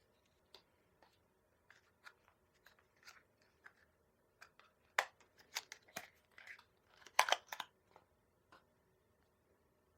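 Small clicks, taps and brief crinkling scrapes from gel-nail supplies being handled, sparse at first and then busier, with the loudest clusters about five seconds in and again around seven seconds.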